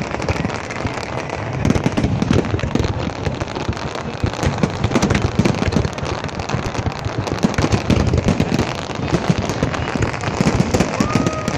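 Fireworks crackling and popping in a dense, unbroken stream of small sharp bangs.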